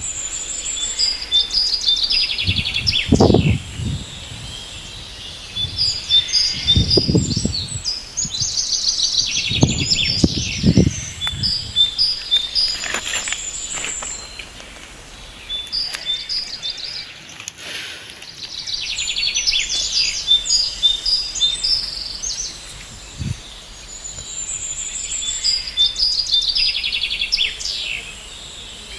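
Songbirds chirping and singing in repeated phrases of quick high chirps and fast trills, coming back every few seconds with a short lull in the middle. A few low rumbles sound under the birdsong in the first half.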